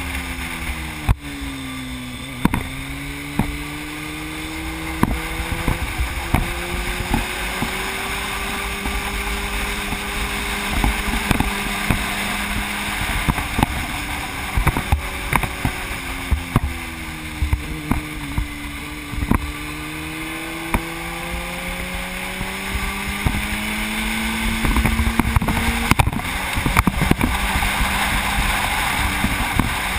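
Sport motorcycle engine on the move, heard from the bike with wind rushing over the microphone. The engine pitch drops over the first two seconds, climbs slowly, drops again around the middle and climbs once more as the rider eases off and gets back on the throttle. Many short knocks run through it.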